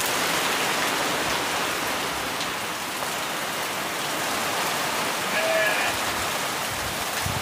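Heavy rain pouring down in a steady downpour.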